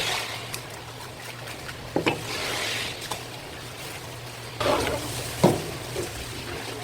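Water splashing and trickling, with a few sharp knocks, the loudest about five and a half seconds in.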